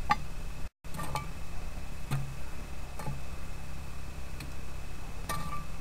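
Lit charcoal briquettes being set one at a time onto a cast-iron camp oven lid: a string of sharp clicks and clinks, about one a second, the last with a short metallic ring, over a steady low hum.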